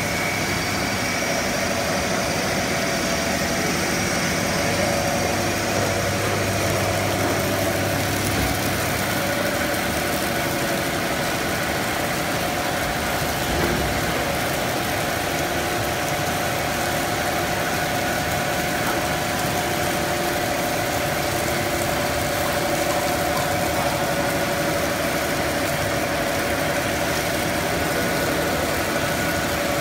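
Cast stretch film production line running: a steady, even machine din with a few steady hums over it, one low hum stopping about eight seconds in.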